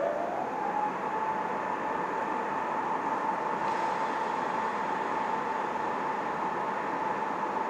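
A stationary ČD class 460 electric unit running its on-board equipment: a high whine rises in pitch in the first second and then holds steady, like a rotary converter settling at speed, over a steady hum of blowers.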